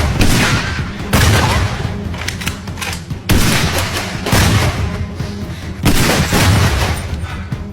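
Loud action-style soundtrack: booming, gunshot-like hits that strike suddenly about every second or so and fade, over a steady low backing.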